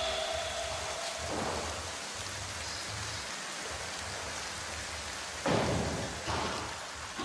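Workshop background noise: a steady hiss over a low hum, with a short louder rush of noise near the end and a smaller one just after it.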